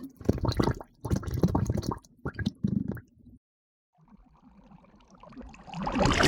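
Water bubbling and gurgling in quick bursts of pops for about three seconds. After a brief pause, a rush of water swells up and is loudest near the end.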